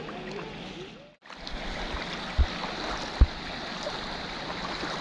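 Fast-flowing stream rushing over stones, a steady hiss of water. The sound cuts out briefly about a second in, and two dull thumps come a little after two and three seconds in.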